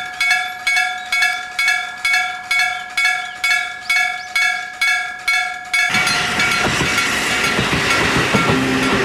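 Electric-bell (denshō-shiki) level crossing alarm ringing in even strokes, about two and a half a second, each stroke fading before the next. About six seconds in, a train running over the crossing drowns out the bell with the loud, steady rumble and clatter of its wheels on the rails.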